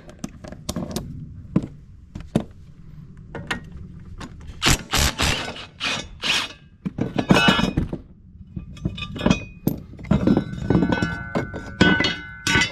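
Clunks, scrapes and clinks of steel as a lawnmower blade and its nuts are worked off the underside of the mower, with a run of harsher scraping knocks in the middle and metallic ringing near the end.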